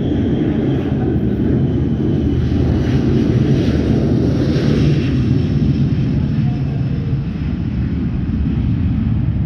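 Boeing 737-500 airliner's twin turbofan engines at takeoff power, a steady loud rumble as the jet rolls down the runway and lifts off.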